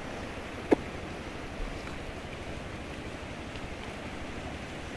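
Fast, turbulent river water rushing past in a steady wash of noise. A single sharp knock stands out just under a second in.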